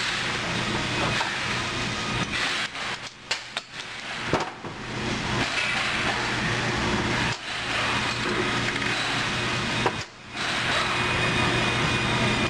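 Steady droning background noise with a low hum, dropping out briefly three times. About two to four seconds in come a few light knocks and clicks as the piston and its pin are worked off the connecting rod.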